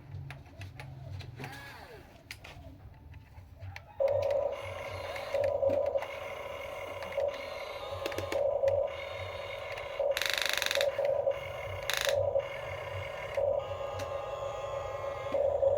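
Electric motors and plastic gearboxes of a radio-controlled toy construction vehicle whining, starting abruptly about four seconds in and rising and falling in pulses as the machine works. Two short hissing bursts come past the middle.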